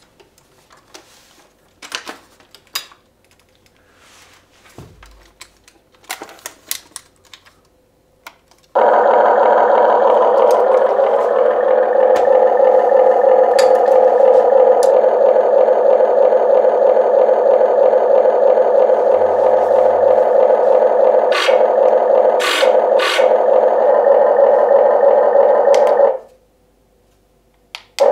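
Simulated excavator diesel engine sound from the model's built-in sound module, played through its small speaker. It switches on abruptly about nine seconds in, rises briefly as if starting up, runs steadily, then cuts off suddenly near the end. Before it there are a few light clicks and knocks of the plastic-and-metal model being handled.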